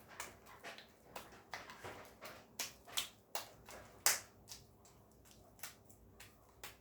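Homemade slime being kneaded by hand, giving irregular sharp wet clicks and pops a few times a second, the loudest about four seconds in.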